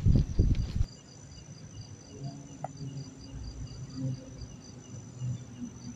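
Crickets chirping in a steady pulse, about three chirps a second, over a continuous high trill. A loud rustle of handling fills the first second.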